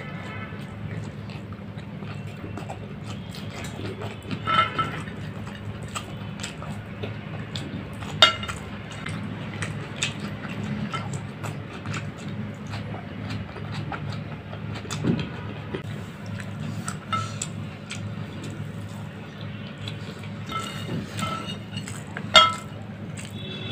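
Eating with the hands from a ceramic plate: fingers scraping and gathering rice, with chewing and a few sharp clinks on the plate that ring briefly. A steady low hum runs underneath.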